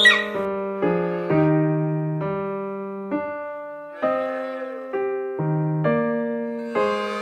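Background electric piano music: slow single notes and chords, each struck and then fading.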